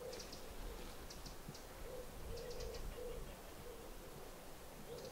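A pigeon cooing, a slow phrase of soft low hoots about half a second apart, with small birds giving short, high chirps in little clusters.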